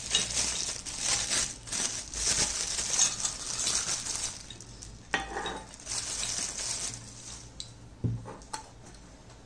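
Plastic wrapping crinkling as it is pulled off a miniature brass kettle, followed by light clinks and a knock of brass as the kettle is set onto a wire stand of tiny brass cups about eight seconds in.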